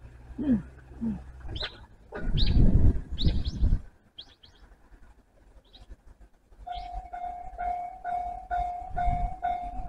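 Birds chirping and a brief loud low rumble, then about seven seconds in a railway level crossing alarm starts ringing: a repeating electronic bell, about two and a half strikes a second, warning of the approaching train.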